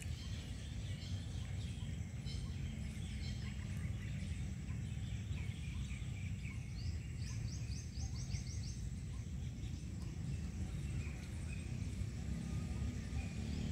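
Small birds chirping over a steady low background rumble, with a quick run of about eight rising chirps near the middle.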